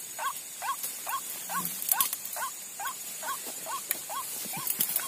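White-breasted waterhen (ruak-ruak) calling, a short rising-and-falling note repeated evenly about twice a second.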